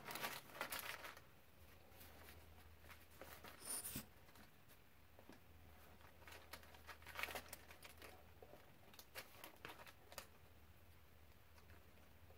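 Quiet handling sounds: a brief rustle of wax paper near the start, then a few soft clicks and taps from a plastic glue bottle being picked up and squeezed over the paper.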